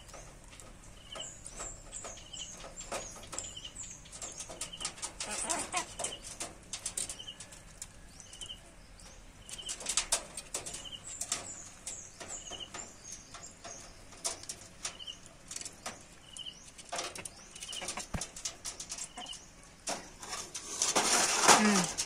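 Chickens pecking at a mango on a wire-mesh cage floor: a run of sharp, irregular taps of beaks on fruit and wire. Small birds chirp in the background, one short high call repeating about once a second. A louder flurry near the end.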